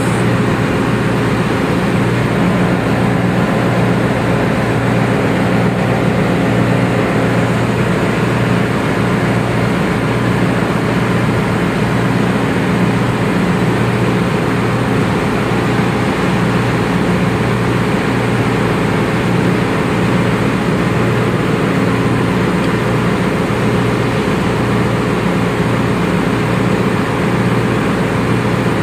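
Loud, steady machinery drone of a ship's engine room: a constant hum of several low tones under an even hiss, unchanging throughout.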